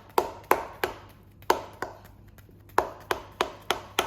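Sharp, evenly spaced knocks, about three a second and stopping briefly twice: a kitchen utensil striking a hard surface.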